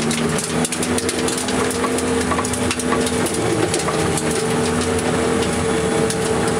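Nissan SR20DET four-cylinder engine in an AE86 Trueno running at a steady speed, heard from inside the cabin. Its pitch holds steady throughout, under a constant clatter of frequent clicks and rattles.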